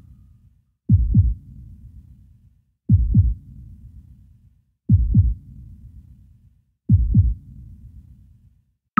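Low double thumps, a lub-dub like a slow heartbeat, repeating about every two seconds, each with a short low rumbling tail.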